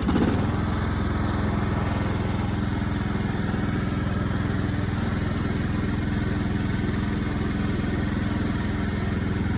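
Rebuilt Kohler Courage 20 HP engine running steadily at an even speed on its break-in run, with no change in pitch.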